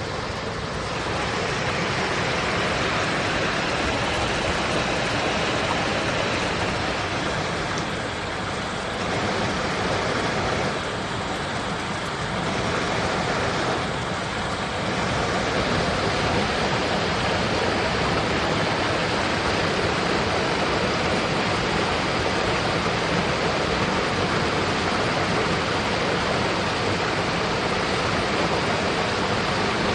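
Forest stream rushing: a steady, fairly loud hiss of flowing water, a little louder in the second half.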